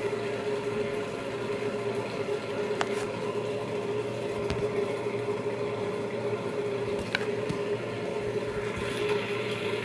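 Steady room hum with one constant tone, and a few sharp clicks and knocks as the recording phone is picked up and handled.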